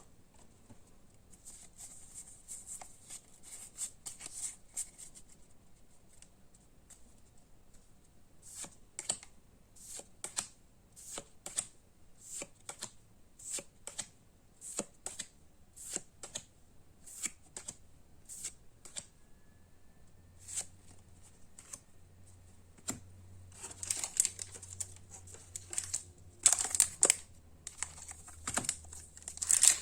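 Pokémon trading cards being handled and flipped one by one, each card giving a short, sharp click or snap. In the last several seconds this gives way to louder crinkling of booster-pack wrapping.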